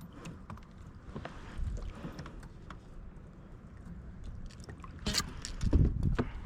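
Handling sounds in a kayak after landing a fish: scattered light clicks and rustles over low bumps, then a cluster of louder knocks and thuds against the boat about five seconds in.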